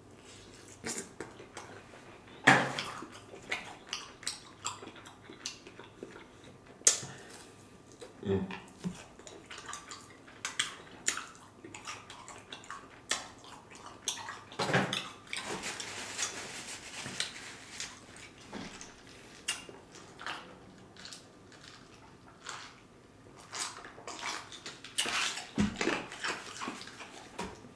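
A person chewing crispy fried chicken wings close to the microphone: irregular crunches and wet mouth clicks, with a denser stretch of chewing noise midway.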